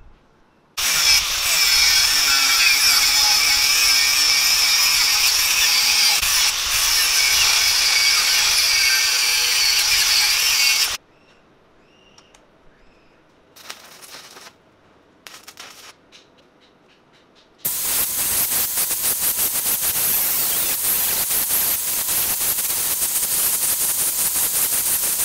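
Angle grinder running against steel in two long stretches, with a quiet gap between them that holds two short scrapes. In the second stretch the disc grinds a steel bike sprocket with a fast rough chatter running through the sound.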